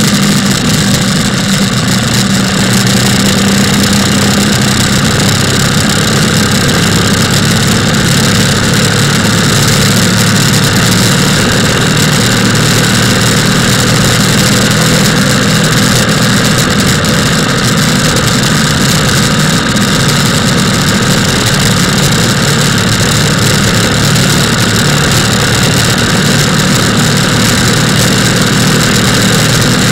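Motorcycle engine running steadily while riding, with wind and road noise on a bike-mounted microphone.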